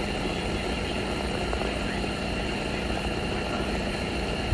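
15,000 BTU propane patio heater burning steadily, a constant rushing burner noise with a faint low hum.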